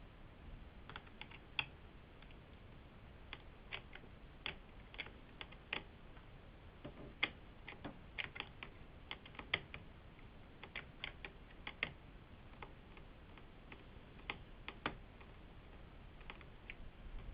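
Faint, irregular light clicks and ticks from a Phillips screwdriver turning out the small screws of a netbook's chassis, coming thickest around the middle.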